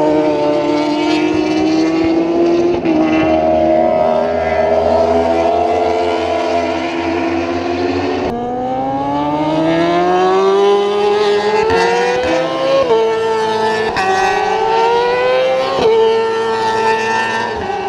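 Racing superbike engines at high revs, holding a fairly steady high note. About halfway through the sound switches abruptly to a bike accelerating hard, its pitch climbing and then dropping sharply at each upshift, three times.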